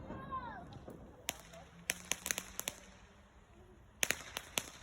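Firework crackling: clusters of sharp pops and cracks, one at about a second in, a run a little later, and another run near the end, as the rumble of an earlier burst fades. A brief whistle rises and falls near the start.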